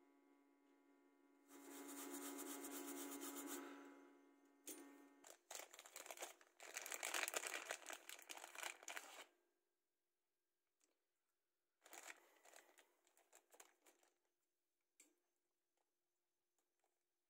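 Plastic wrapping being handled, crinkling and rustling in irregular bursts, with a steady faint hum through the first few seconds that stops about five seconds in.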